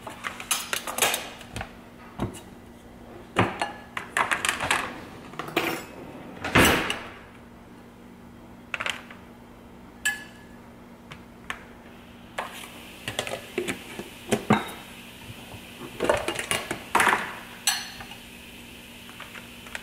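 Utensils clinking and scraping against glass and metal bowls and a plastic meal-prep container as food is spooned out, in irregular short clatters, the loudest about six and a half seconds in.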